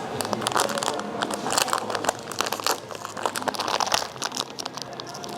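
Blind-box packaging being opened by hand: plastic wrapping crinkling and tearing in quick, irregular rustles.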